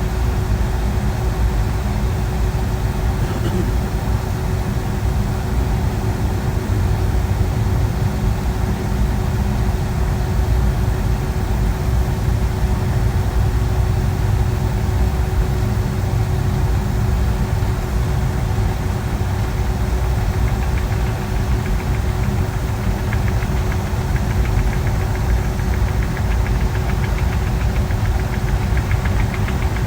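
Steady cabin roar of a Boeing 757-200 in flight: engine and airflow noise, deep and even, with a constant hum running through it.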